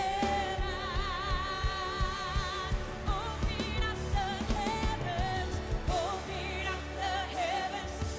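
Live gospel worship music: women's voices singing long held notes with vibrato over a band with bass, drums and keyboards. The first held note ends about two and a half seconds in, and shorter sung phrases follow.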